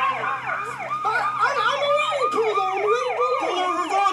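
Police car siren sounding in quick, repeated up-and-down sweeps.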